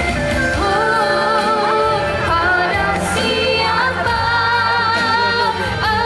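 A woman sings a Malay pop song live into a microphone over instrumental backing, holding long notes with a slight waver.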